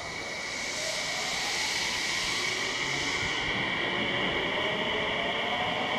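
Tsukuba Express TX-2000 series electric train pulling out of the station and accelerating away, with steady running noise and a faint rising whine from its traction motors.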